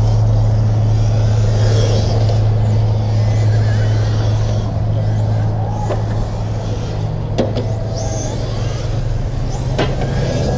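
Electric 1/10-scale RC touring cars with 17.5-turn brushless motors running laps, their high motor and gear whine rising and falling as they speed up and slow down. A few sharp clicks come in the second half, over a steady low hum.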